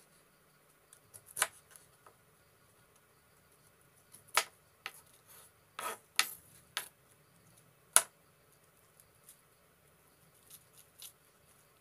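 A kitchen knife cutting through cabbage onto a wooden chopping board: a few irregular sharp knocks and crunches, spaced about a second or more apart, the loudest about eight seconds in.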